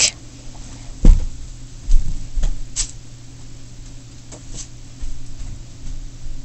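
A person moving about and walking away: a few knocks and clicks, the loudest about a second in, over a steady low hum.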